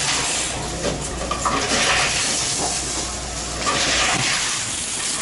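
Tomra T-53 reverse vending machine running as plastic bottles are fed into it: a steady mechanical whirring with a low hum underneath. The hum falls away near the end, where handling noise comes in as the camera is picked up.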